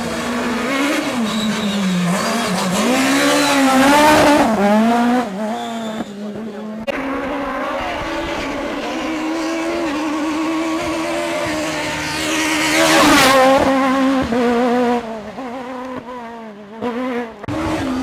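Peugeot 306 Maxi rally car's high-revving four-cylinder engine at full throttle on a hill climb, its pitch climbing and dropping again and again through gear changes and lifts. It is loudest twice, about four and thirteen seconds in, with brief dips around six seconds and late on.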